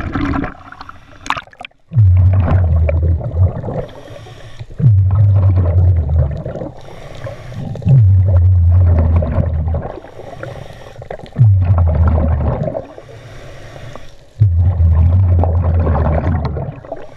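Scuba regulator breathing underwater, cycling about every three seconds: a loud low rumble of exhaled bubbles lasting a second or two, then a quieter hiss between. Brief splashing near the start as the camera crosses the surface.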